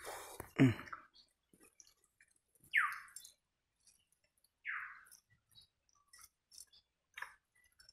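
Quiet hand-eating sounds: fingers working watery pakhala rice in a steel pot, with soft wet squishes and small clicks on the steel bowls. A brief voice sound comes about half a second in, and three short hissing sounds come about two seconds apart.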